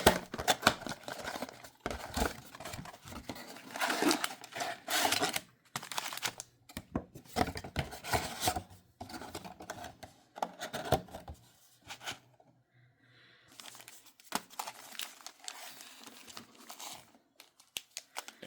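Card packaging being torn open and crinkled by hand, in irregular crackling bursts with a short lull about twelve seconds in.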